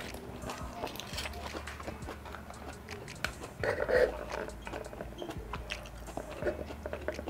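Close-miked wet chewing of a mouthful of shawarma wrap, with small clicks of the mouth. About three and a half seconds in comes a louder, brief sip through a straw from a cup of yogurt shake.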